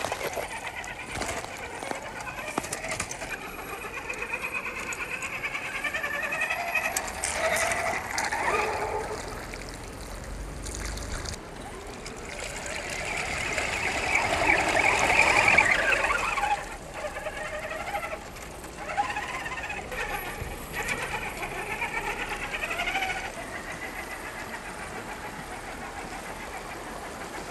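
RC rock bouncer's brushless motor (Hobbywing AXE540 2300kv) and drivetrain whining, rising and falling in pitch as the throttle is worked. About halfway through, louder splashing and churning as it plows through water.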